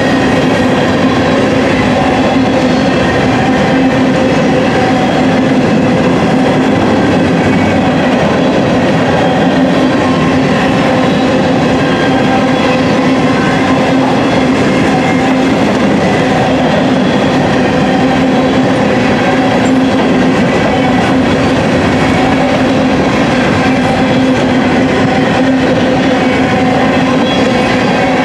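Covered hopper cars of a grain freight train rolling past at close range: a steady, loud rumble of steel wheels on rail with a steady hum running through it.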